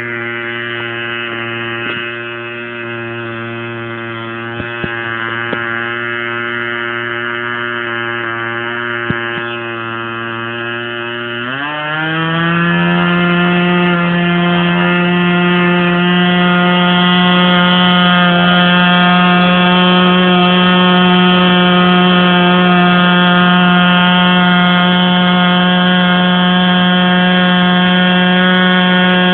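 Model airplane engine running at a steady idle, then throttled up about eleven seconds in, its pitch rising quickly to a higher, louder steady speed that it holds. A few faint clicks during the idle.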